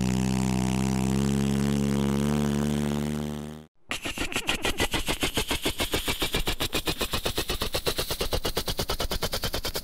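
Garbage truck's diesel engine idling steadily, fading out about three and a half seconds in. After a short gap, a helicopter's rotor starts a rapid, even chopping.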